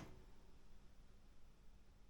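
Near silence: a pause in typing, with only faint room tone and a low steady hum.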